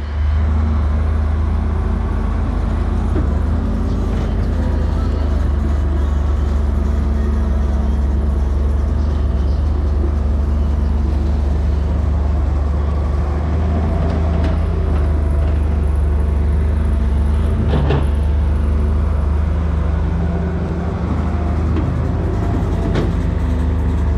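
JCB tracked excavator's diesel engine running steadily as it digs, a constant low drone, with a couple of short knocks from the working arm and bucket.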